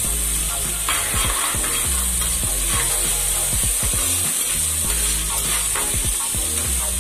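Water-soaked dried red chillies, curry leaves and whole spices sizzling in hot oil in a clay pot, with a spatula stirring and scraping them about: a curry tempering being fried. The sizzle is a steady hiss, broken by short scrapes of the spatula against the pot.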